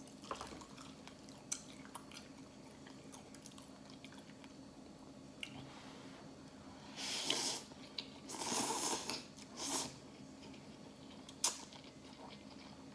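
Mouth sounds of eating instant ramen noodles with chopsticks: quiet chewing and small wet clicks, then three loud noodle slurps in quick succession about seven to ten seconds in.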